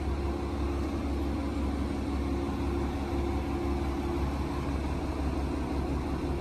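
Diesel railcar's engine idling, a steady low hum heard inside the passenger car while the train stands at the platform.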